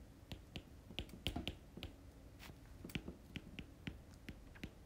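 Stylus tapping and ticking against a tablet's glass screen while words are handwritten: a faint run of light, irregular clicks.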